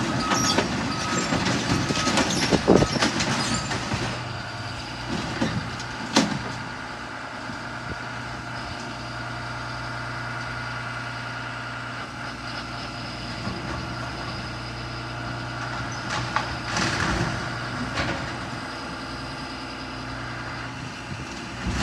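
A large diesel engine running steadily, with clattering in the first few seconds and a sharp knock about six seconds in: heavy machinery at work bringing a storm-damaged building down.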